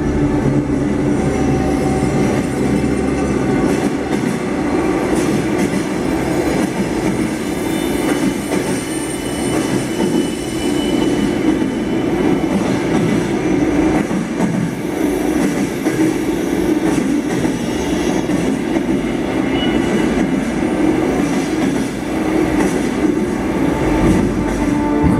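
Train running on rails: a steady, loud rumble of the carriages and their wheels on the track.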